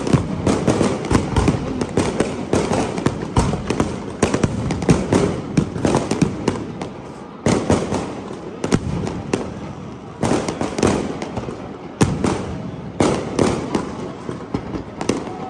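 Aerial fireworks going off: a dense, continuous crackle of rapid bangs, with a few louder single bangs standing out in the second half.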